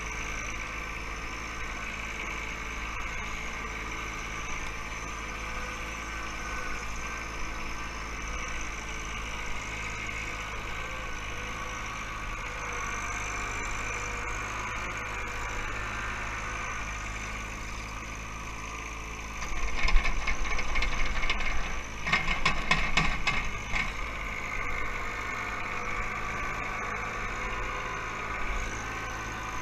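Compact tractor's three-cylinder diesel engine running steadily while working a backhoe. About two-thirds of the way through, a louder rattling clatter lasts about four seconds.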